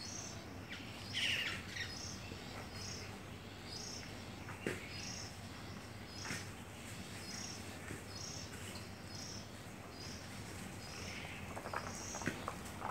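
An insect calling in a steady pulse, about two short high calls a second. Birds chirp over it: a louder fluttering chirp about a second in and more calls near the end, with a few sharp clicks.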